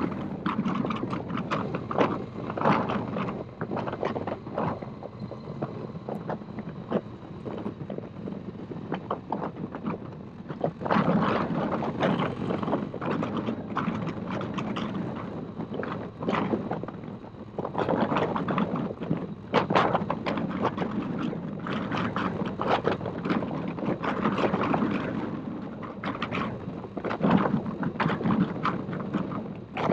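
Motorcycle riding at road speed, heard from a handlebar-mounted camera: wind buffeting the microphone over the engine's low running note, with frequent rattling clicks and knocks from the shaky mount. The wind swells louder a few times, about ten seconds in and again near twenty.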